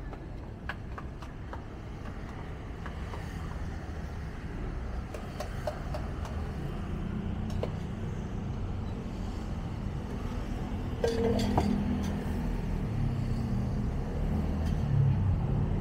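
Low rumble of street traffic that grows louder in the second half, with scattered light clinks of a steel pouring cup and utensils against a flat-top griddle, a few clustered together about eleven seconds in.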